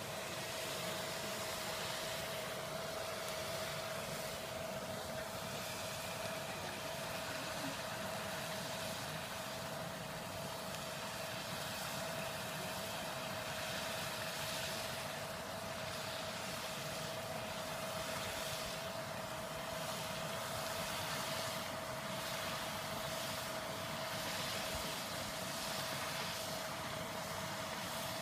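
Pond paddlewheel aerator running steadily: a constant motor hum with one unchanging whine, over the wash of its paddles churning the water.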